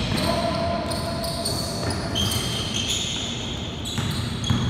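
Basketball game play on a wooden gym floor: the ball bouncing in knocks, with high squeaks of sneakers on the court.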